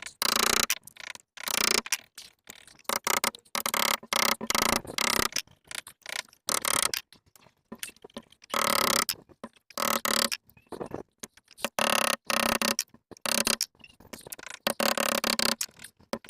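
Irregular bursts of scraping and prying as a boat window pane is worked loose from its frame and the old sealant is separated, each lasting a fraction of a second to about a second with short gaps between.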